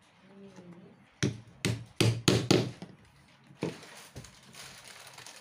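Sharp wooden knocks as teak stool frame pieces are tapped together while their joints are fitted: a quick run of about six knocks, then one more, followed by a soft rustle.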